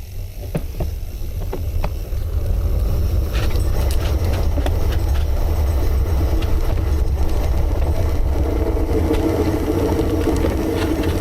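Heavy wind rumble on the microphone of a camera riding on a gravel bike rolling along a dirt trail, with scattered clicks and rattles from the bike. The rumble builds over the first two seconds.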